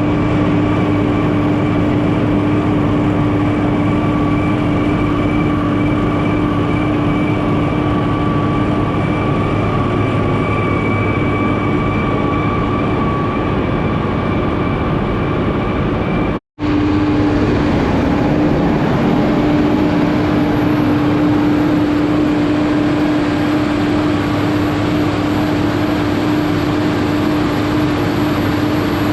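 Tractor-driven silage bagger running steadily at constant speed: a loud, even machine hum that holds one pitch, with a brief cut-out about halfway through.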